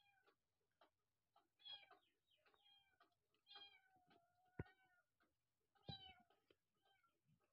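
Kittens mewing faintly, about four high-pitched mews of half a second each, with small clicks and scuffles from their paws on loose brick rubble and one sharp click about halfway through.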